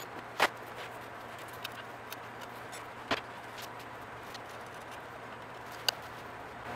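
A few scattered light footfalls and small knocks on a concrete shop floor over a steady low hum of room noise.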